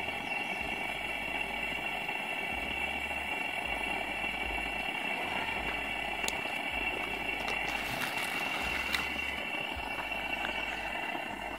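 Propane camp stove burner running steadily under a lidded frying pan of oil that is heating for frying fish: a steady rushing hiss. A few light clicks and knocks come about six and eight to nine seconds in.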